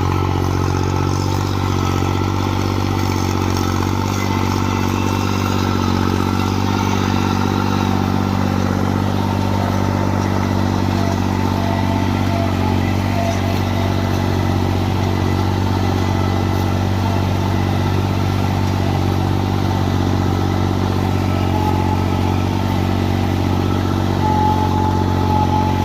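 New Holland tractor's diesel engine running steadily, driving a working Shaktiman baler.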